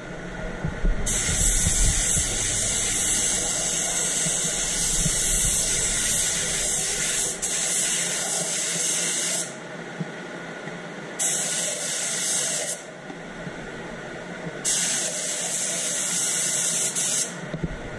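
Compressed-air spray gun hissing in three trigger pulls: one long pass of about eight seconds, then two short ones, each cutting in and off sharply, over a steady background drone.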